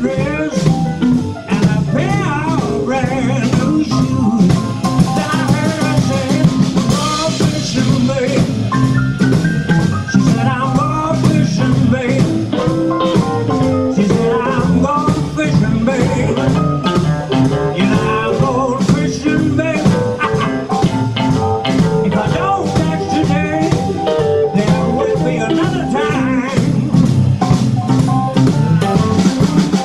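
Live blues band playing: electric guitar, keyboards, double bass and drum kit, with a man singing.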